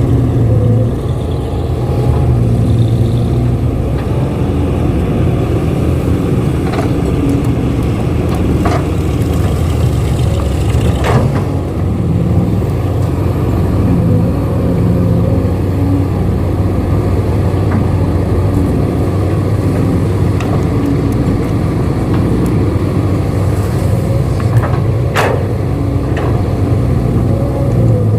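Excavator engine running steadily with a low drone, with a few sharp knocks, the loudest about 11 and 25 seconds in.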